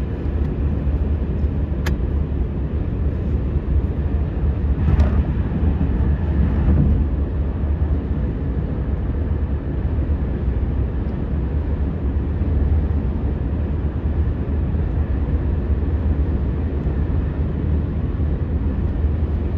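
Steady low rumble of a moving vehicle heard from inside the cabin while travelling at speed, with a single sharp click about two seconds in and a brief swell of rushing noise around five seconds in.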